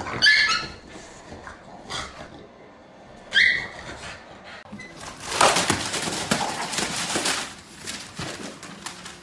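An animal, most likely a pet dog, gives two short high-pitched calls, one right at the start and one about three seconds in. From about five seconds in come a few seconds of loud rustling noise.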